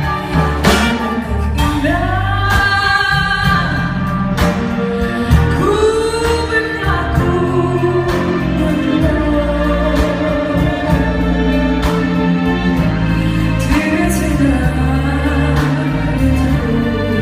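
Music: a ballad with a sung melody over band accompaniment, a steady heavy bass and regular drum hits.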